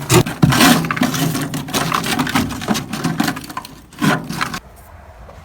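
Clattering and scraping of a seed planter's rusted-through sheet-metal fertilizer box being handled, with a run of sharp knocks. It stops about four and a half seconds in.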